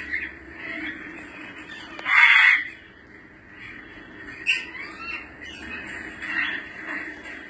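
African grey parrots calling: one loud, harsh squawk about two seconds in, followed by shorter squawks and a few gliding whistles.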